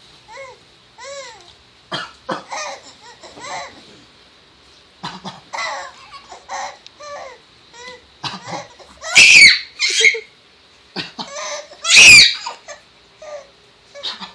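Baby laughing and babbling in short bursts in answer to his father's coughs. Two loud coughs, about nine and twelve seconds in, are the loudest sounds.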